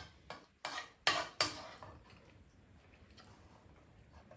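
Spoons scraping and clinking against a frying pan and rice bowls as egg rice is scooped and eaten: four or five quick scrapes in the first two seconds, then quiet.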